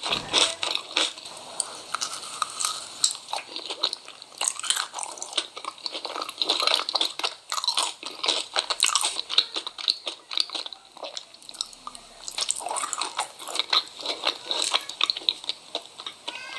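Close-miked crunchy biting and chewing of food, a dense run of irregular crackling crunches.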